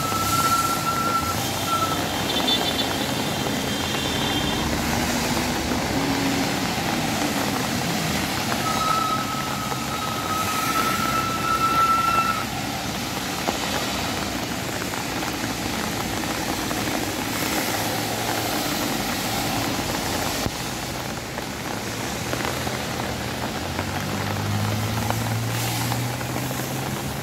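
Traffic on a wet street: vehicle engines passing over a steady background noise, with a low engine hum growing louder near the end. A high, steady tone sounds twice, once around the start and again about ten seconds in.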